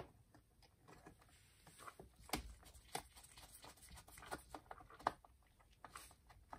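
Faint, scattered clicks and taps from a hand-held Phillips screwdriver and wiring being handled while the controller's mounting screws are put in.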